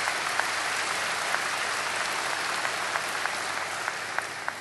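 Large seated audience applauding, an even spread of many hands clapping that tapers off near the end.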